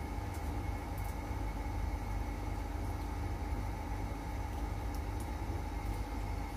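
Steady low mechanical hum with a couple of faint steady tones over it, and a few soft clicks.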